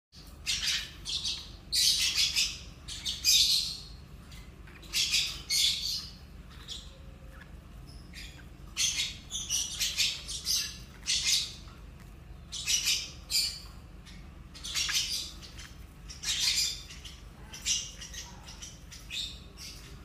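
Lovebird chicks calling: short, harsh, raspy squawks repeated in clusters with brief pauses between them.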